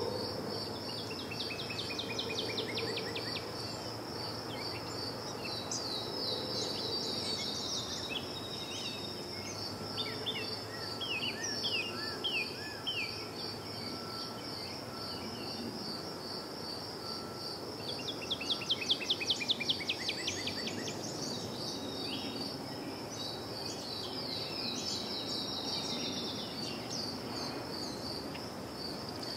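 Outdoor ambience: an insect, likely a cricket, trilling steadily in a high, evenly pulsed note throughout, while songbirds sing in bursts of quick descending notes, the loudest run about two-thirds of the way through. A low steady rumble sits underneath.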